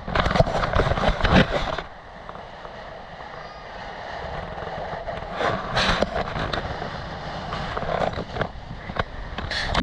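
Wind buffeting the microphone outdoors: a continuous low rumble with louder gusts near the start, about halfway through and again near the end.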